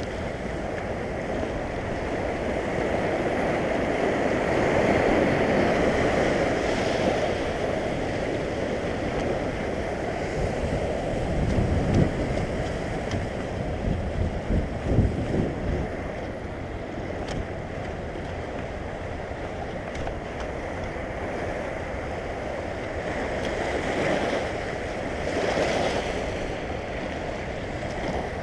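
Sea surf washing and foaming over a rocky lava shore, swelling and easing as the waves come in. Wind rumbles on the microphone, with a few low thumps about halfway through.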